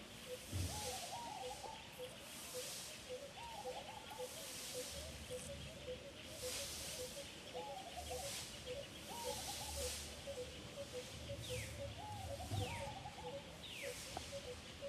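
Outdoor wildlife ambience: a high insect-like hiss swelling and fading in waves, a fast, even run of short notes at one pitch, and short wavering animal calls repeating every few seconds. Near the end, three quick downward-sliding whistles.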